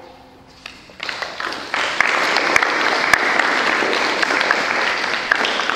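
Schoolchildren applauding together. The clapping starts about a second in, swells to a steady level, and begins to die away near the end.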